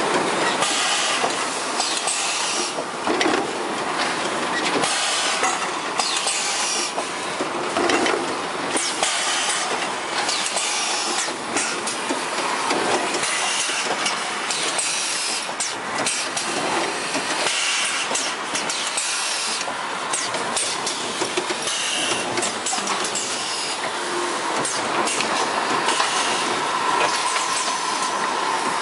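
Automatic shrink-wrapping and carton packaging machinery for welding-wire spools running: a steady hissing machine noise with irregular clanks and knocks.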